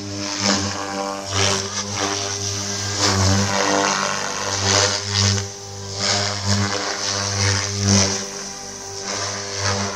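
Goblin 420 electric RC helicopter in flight: a steady rotor hum with a high motor whine. It swells and dips every second or so as the helicopter manoeuvres.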